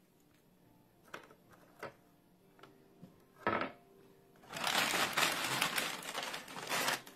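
Crinkling of a plastic bag of vanilla wafers as a hand reaches in for more, a long rustle in the second half. Before it, a few light taps as wafers are set down on the banana pudding.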